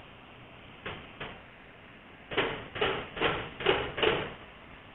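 A steady low hiss under TIG welding of mild steel plate, broken by two short knocks about a second in and then five louder, evenly spaced knocks about two a second in the second half.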